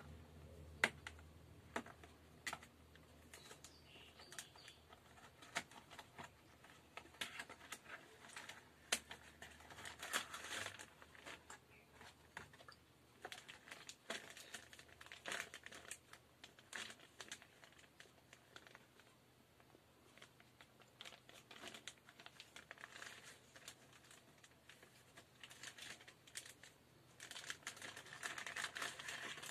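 Clear plastic bag crinkling and rustling as it is handled around a neckband earphone, with scattered sharp clicks and taps. The crinkling is loudest around ten seconds in and again near the end.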